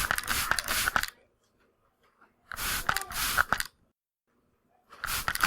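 Atomizer spray bottle being pumped: short hissing sprays with clicks from the pump, coming in bursts of two or three quick squirts about every two and a half seconds.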